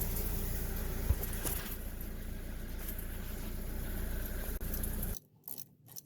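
Toyota GT86's rear wheel turning under the running engine, its worn rear wheel bearing making a loud, steady noise. One click about a second in; the sound cuts off suddenly about five seconds in.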